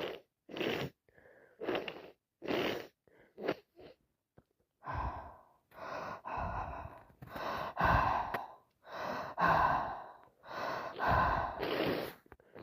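A person breathing in short, separate gasps, then making a run of pitched vocal sounds, each about half a second to a second long.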